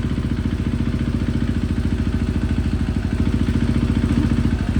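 2018 KTM 500 EXC-F's single-cylinder four-stroke engine running at a steady idle, its exhaust pulses coming evenly and fast, a little louder about three seconds in.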